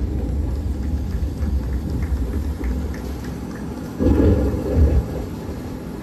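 A low, uneven rumble that swells sharply about four seconds in, over faint background music.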